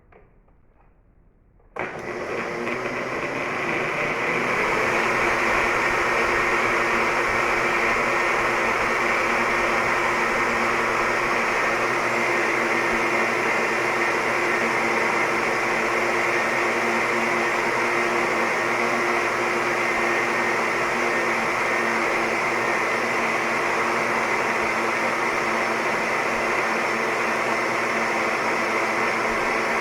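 Electric kitchen blender. It is off for about the first two seconds, then switches on suddenly, spins up over a second or two and runs at a steady pitch.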